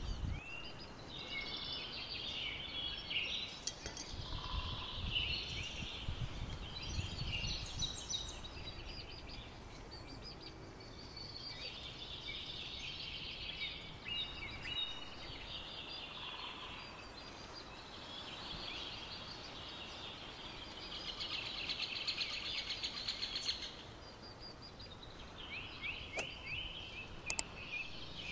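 Small birds chirping and singing continuously, with a fast trill about three-quarters of the way through.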